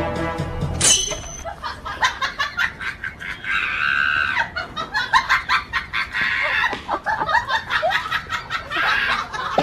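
Background music cuts off about a second in. Then a chicken clucks and squawks in quick, agitated runs, with several louder squawks.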